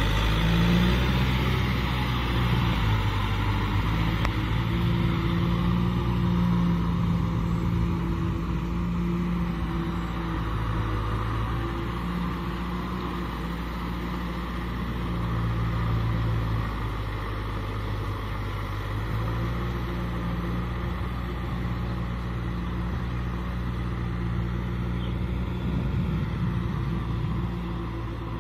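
Kubota M6040 SU tractor's four-cylinder diesel engine running steadily under load as it pulls a rotary tiller through flooded paddy mud, growing slightly fainter as it moves off.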